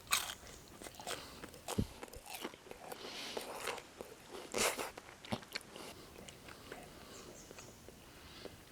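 A person biting into and chewing halloumi close to the microphone: irregular wet crunches and mouth clicks, louder in the first half and fading to quieter chewing.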